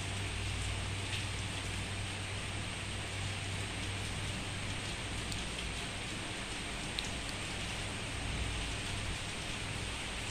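Rain falling steadily: an even hiss with a few sharper drop ticks, over a low steady hum.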